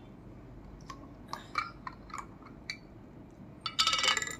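Tight metal twist-off lid of a glass honey jar being worked open by hand: a few small clicks and ticks. Near the end comes a louder burst of metallic clinking as the freed lid is set down on the counter.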